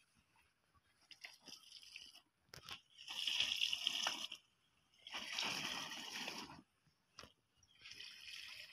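Liquid fertilizer solution spurting under pressure from a long pipe applicator wand into the soil at the base of chili plants, with a hiss, in three separate bursts of a second or so each. A couple of short clicks come just before the first burst.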